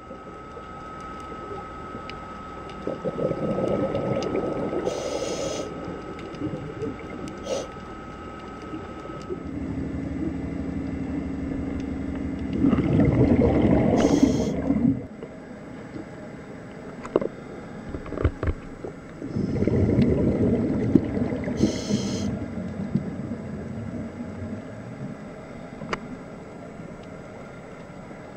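Scuba diver breathing underwater through a regulator: three bubbling, rushing exhalations several seconds apart, over a faint steady background with a thin whine in the first third.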